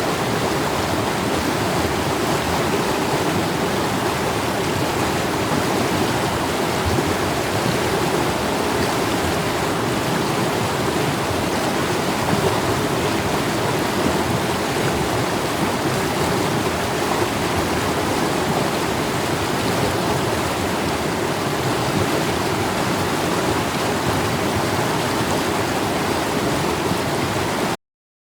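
Mountain stream flowing fast: a steady, even rush of water that cuts off suddenly near the end.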